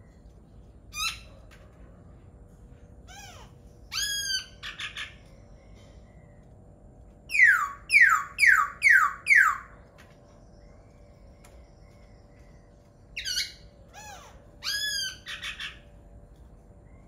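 A laughingthrush singing in separate loud phrases. There are a few short notes, then a run of five loud falling notes at about two a second, then two more short phrases near the end.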